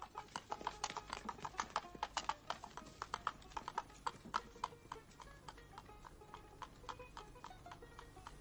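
A horse's hooves clip-clopping as it sets off at the driver's command. The hoofbeats come in a quick, uneven run and grow fainter as the horse moves away, with soft music underneath.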